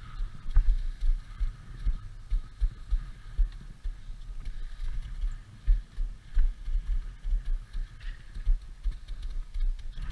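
Wind buffeting the camera's microphone in uneven low gusts as the skier moves down the slope, over a faint steady hiss.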